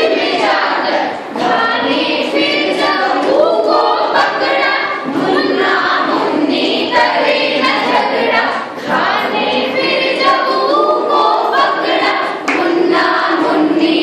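A group of women singing a Hindi song together in chorus, the voices carrying on through the whole stretch with only short breaths between lines.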